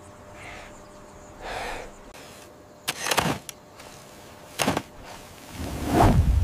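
Hands clawing and scraping at dry, dusty earth: a few sharp scrapes in the second half, then a loud, deep thud with a rush of flung dirt near the end.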